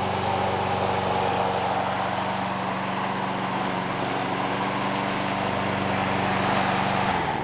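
Toro Super Recycler mower's 7¼ horsepower Briggs & Stratton engine running steadily as the mower self-propels along, then shutting off near the end when the safety bail is let go.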